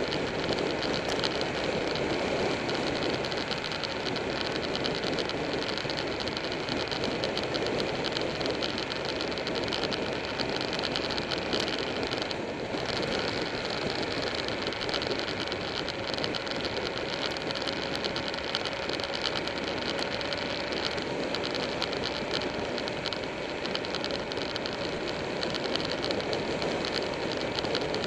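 Buell 1125R motorcycle's V-twin engine running at a steady cruise, mixed with the rush of wind and road noise over a bike-mounted camera.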